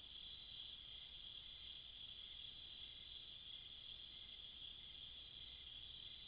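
Faint, steady high-pitched chorus of night insects, unbroken throughout, over a faint low hum.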